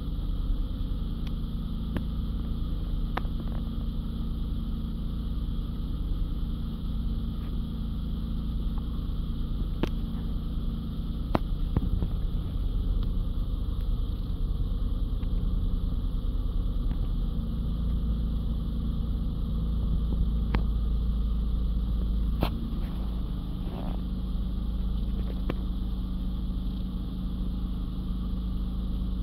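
Storm wind buffeting the microphone as a steady low rumble, with scattered sharp ticks from raindrops hitting the phone.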